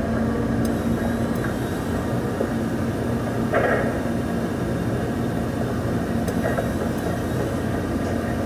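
KATO MR-350R rough terrain crane's diesel engine running steadily, heard from inside the operator's cab. A few faint clicks and a brief louder patch about halfway through sit over the drone.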